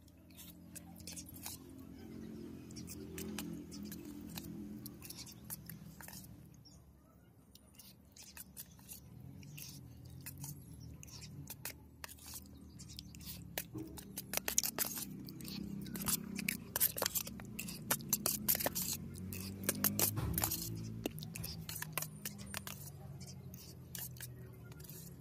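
Steel spoon scraping and clicking against a steel plate of rice and dal, with chewing; the clicks come thickest a little past halfway. A low, steady music-like hum runs underneath.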